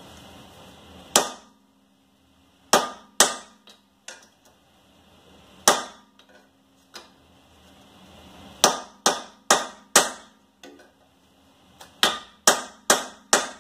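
Sledgehammer blows on steel, knocking at a seized rear wheel hub to drive it loose. About a dozen sharp, ringing strikes come at an uneven pace, with a quick run of four near the end.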